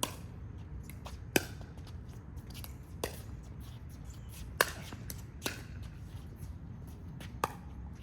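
Pickleball rally: sharp pops of paddles striking the hollow plastic ball, about six in all at uneven gaps of a second or two, two of them much louder than the rest, over a low steady rumble.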